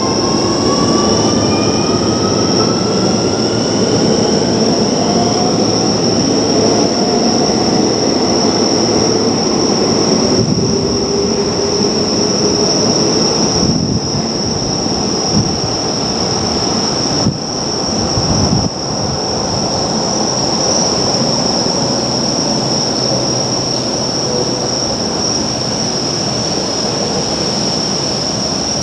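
Keio Line electric train running, its motors' whine rising in pitch over the first few seconds as it picks up speed, then a steady running noise with a constant high tone and a few brief knocks in the middle.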